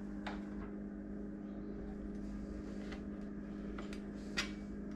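A steady low hum, with a few light clicks, the sharpest about four seconds in.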